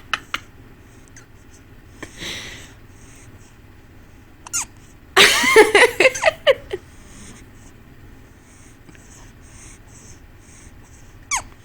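Two-week-old newborn hiccuping: short, sharp hiccups, one about four and a half seconds in and another near the end, with a breathy sound about two seconds in. About five seconds in the baby gives a louder, high-pitched vocal sound lasting about a second and a half, the loudest thing here.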